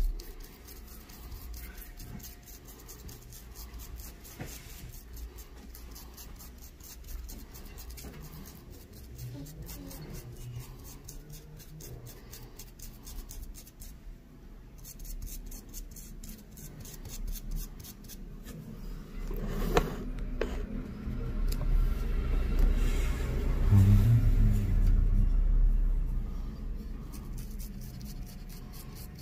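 A stiff, cut-down brush scrubbing and dabbing a water-wetted, painted plastic strip, a faint rubbing and scratching. The water reactivates the chipping fluid underneath so the top paint coat comes away. A low rumble swells in the second half.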